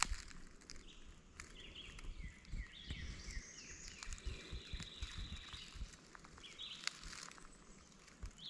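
Faint woodland ambience with birds calling: a run of short repeated chirps and a brief high trill through the middle, over light knocks and rustles from the camera being handled.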